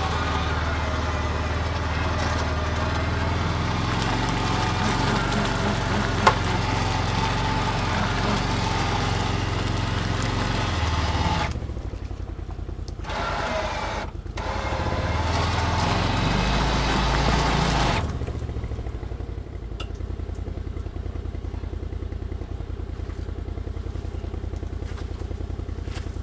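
Can-Am Defender HD10 UTV's V-twin engine running as the machine crawls along a muddy trail. About eleven seconds in it eases off, then pulls again for a few seconds and settles to a steady idle for the last eight seconds. There is a single sharp click about six seconds in.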